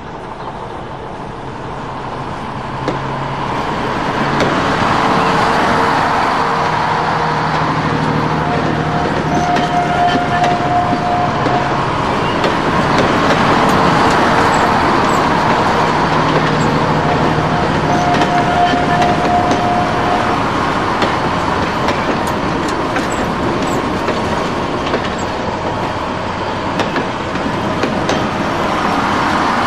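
Road traffic noise, with vehicles passing one after another in swells of sound and a few engine or horn tones held for a couple of seconds. It gets louder a few seconds in.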